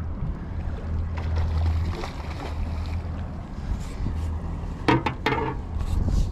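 Low, steady rumble of wind and boat noise on a chest-worn microphone while fishing rods are handled, with a brief cluster of sharp sounds about five seconds in.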